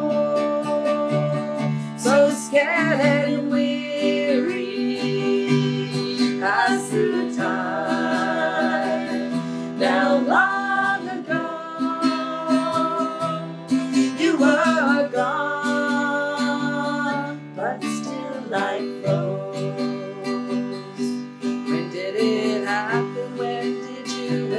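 Women singing a song to two acoustic guitars.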